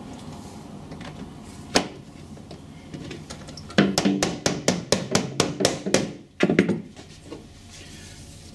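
A mallet knocking a uPVC glazing bead home into the window frame. One knock about two seconds in, then a quick run of taps, about five a second, lasting a couple of seconds, and two more just after.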